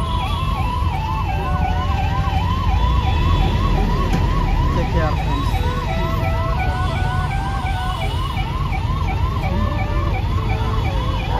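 Emergency vehicle siren wailing in fast up-and-down sweeps, about two to three a second, over the steady rumble of jammed road traffic; the sweeping stops near the end.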